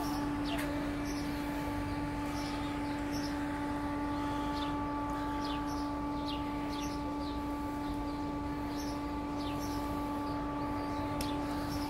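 Small birds chirping, short falling chirps scattered throughout, over a steady hum of several fixed tones that runs without change.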